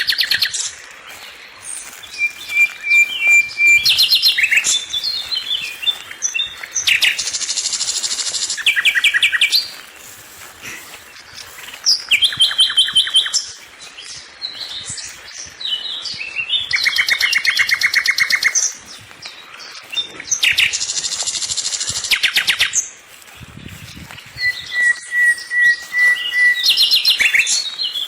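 A songbird singing in long phrases that come every few seconds. They are made of rapid trills, short chirps and a few held high whistles, with brief pauses between phrases.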